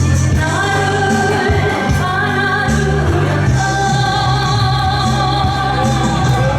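A Korean trot song sung live over backing music. The voice holds long notes over a steady bass line.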